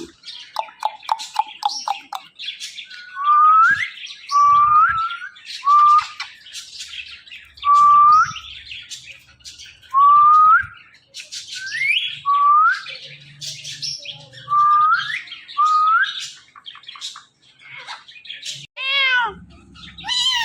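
Pet parrot giving a string of short rising whistles, one every second or two, among scratchy chatter and squawks. Near the end a run of arched, meow-like calls begins.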